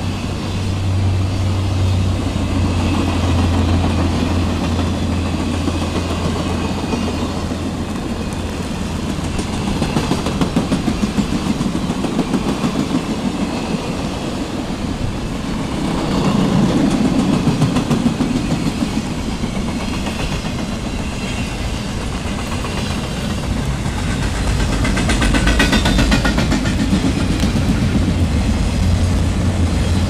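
Circus train rolling past close by, first its passenger coaches and then flatcars carrying trailers and trucks. Steel wheels click rapidly over the track in spells over a loud, steady rolling noise.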